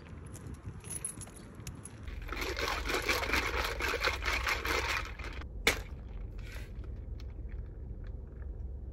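Iced mango green tea with tapioca pearls sucked up through a wide bubble-tea straw for about three seconds, then a single sharp click, over a low steady hum.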